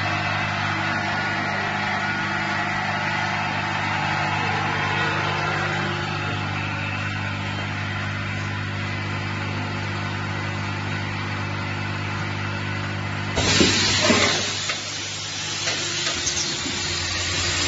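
Vibratory cap bowl feeder of an automatic cap assembly machine running with a steady hum. About thirteen seconds in, a loud hiss of compressed air starts suddenly, with a few clicks, from the machine's pneumatic assembly heads.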